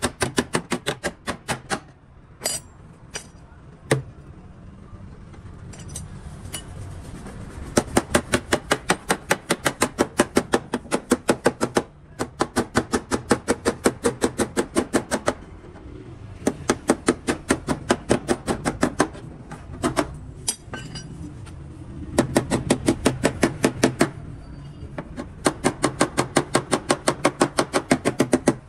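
Rapid hammer taps on car-body sheet metal, about five a second, in runs of a few seconds with short pauses between them.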